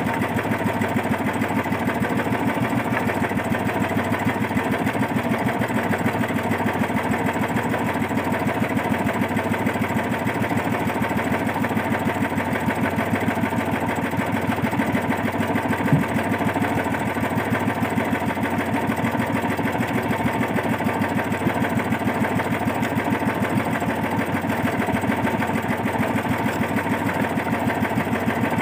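Small engine of an outrigger fishing boat running steadily at low throttle, with a fast, even beat. One short knock about halfway through.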